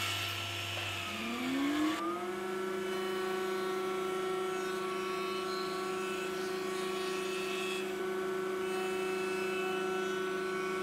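Table-mounted router with a bearing-guided bit spinning up with a rising whine between one and two seconds in, then running with a steady whine.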